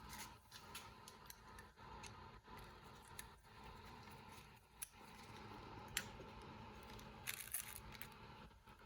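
Faint scattered clicks and taps of small carburetor parts and tools being handled during disassembly, with one sharper click about six seconds in and a short cluster of clicks soon after.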